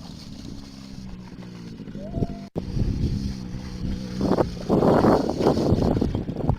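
Small ATV engine running steadily, with a brief cut about two and a half seconds in, then louder and rougher from about four and a half seconds in.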